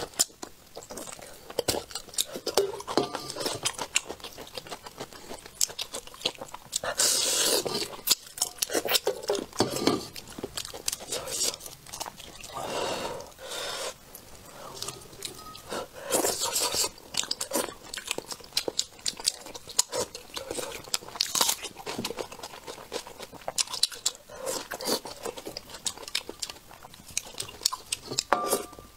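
A person chewing and biting spicy braised fish close to a clip-on microphone, with many sharp clicks of chopsticks and dishes throughout.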